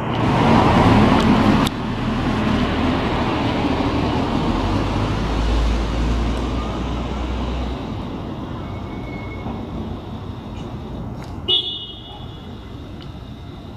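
City street traffic: a vehicle passes close by at the start, its noise cutting off suddenly, then a steady traffic hum with a low rumble in the middle. About eleven and a half seconds in comes one brief high-pitched toot.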